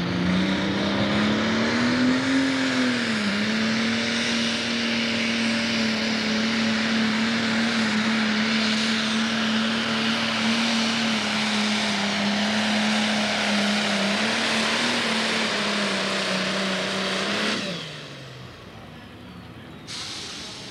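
Turbocharged diesel engine of a Pro Stock pulling tractor at full throttle, dragging the weight-transfer sled. The revs climb at the start, dip briefly and then hold steady for about fifteen seconds. Near the end the throttle is cut and the engine winds down.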